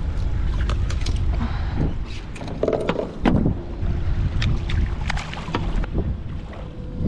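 Wind rumbling on the microphone, with a run of sharp splashes and slaps at the boat's side as a striped bass held in a lip gripper thrashes at the water's surface.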